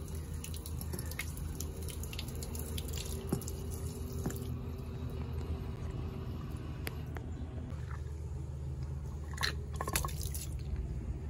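A stream of water pours into a handheld pump jet ejector and splashes out onto wet concrete, with a steady low hum underneath.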